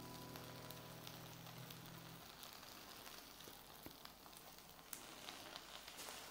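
Faint sizzle and crackle of a hot frying pan just taken off the heat, with scattered tiny clicks.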